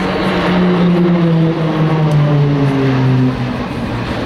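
Engines of a six-aircraft display formation flying past overhead: a steady drone whose pitch slides down over about three seconds as the formation passes, then holds lower.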